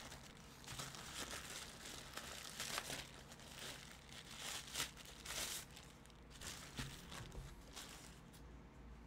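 Plastic mailer bag crinkling and rustling as it is pulled open and its plastic-wrapped contents are drawn out, in irregular bursts that thin out near the end.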